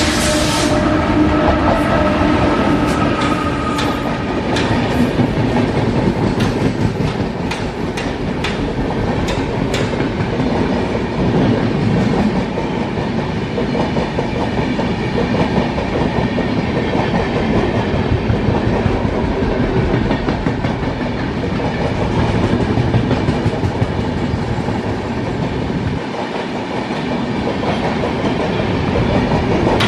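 Indian Railways express train passing close by: a steady, loud rumble of wheels on rails with clickety-clack over the rail joints, the clacks sharpest in roughly the first ten seconds.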